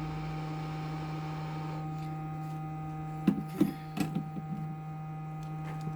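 Steady electrical hum from repair-bench equipment, with a hiss that cuts off about two seconds in, then a quick cluster of clicks and knocks from tools being handled on the bench a little past halfway.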